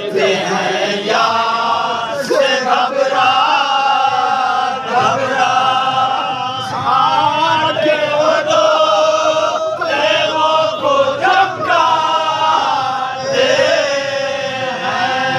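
A group of men chanting a noha, a Shia mourning elegy, in chorus. A lead voice reads the verses from a sheet and the others join in long, wavering sung lines.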